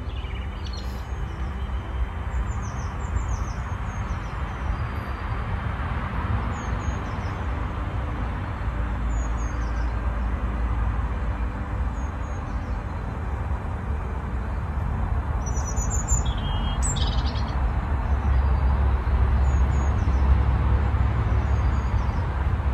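Garden birds chirping in short repeated calls, with a louder burst of calls a little past the middle. Under them runs a steady low rumble that grows slightly louder in the second half.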